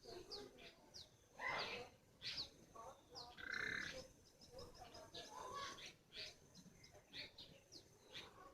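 Broiler chicken snoring softly, a breathy snore about every two seconds. Many short, high, falling bird chirps run over it.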